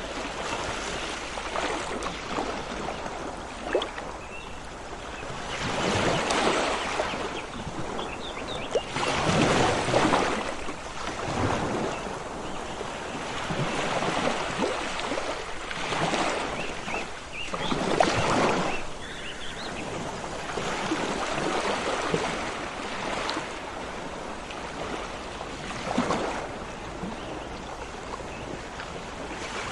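Sea waves washing in, swelling and breaking every few seconds, with a few faint high bird chirps.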